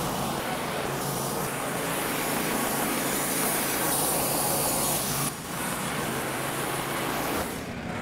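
Wood-Mizer LT15 Wide portable band sawmill running under power, a steady engine hum under a loud hiss of the band blade, with a brief dip about five seconds in.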